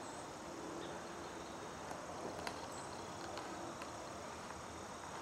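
Faint, steady outdoor background with a continuous high chirring of crickets.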